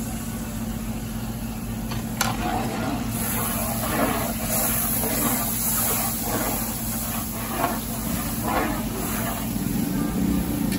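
A metal ladle stirring and sloshing broth in a large metal cooking pot, a run of repeated swishing strokes starting about three seconds in, over a steady low hum.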